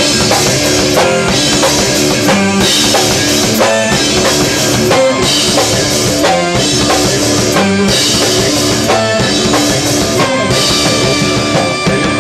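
Live rock band playing loudly: drum kit, electric bass and keyboard, with a cymbal crash about every two and a half seconds.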